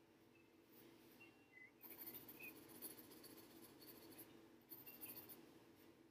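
Faint scratching of a pencil on sketchbook paper in short back-and-forth shading strokes, coming in spells from about two seconds in.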